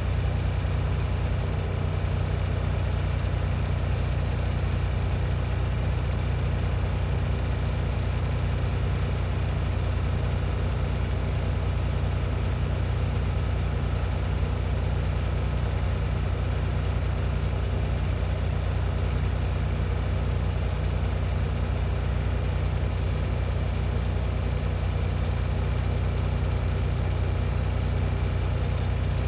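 Heavy diesel truck engine idling steadily, a deep even drone that does not change.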